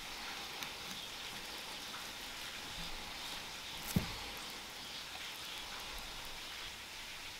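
Faint, steady background hiss with a single soft knock about four seconds in.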